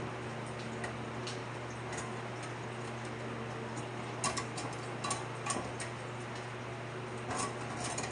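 Light clicks and taps of stainless steel dish rack parts being fitted into their holes, a few scattered ones in the second half, over a steady low hum.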